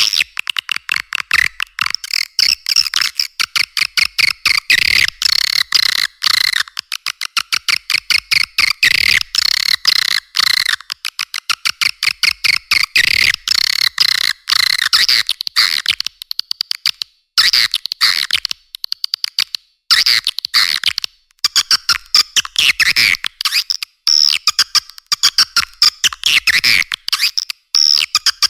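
Swiftlet lure call recording: rapid, high-pitched chattering twitters of edible-nest swiftlets, mixed with begging calls of the chicks, in quick runs broken by a few short pauses.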